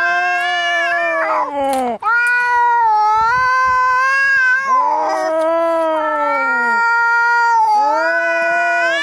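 Angry cats caterwauling as in a fight: four long, drawn-out yowls in a row, each about two to three seconds, wavering in pitch, with only brief breaks between them.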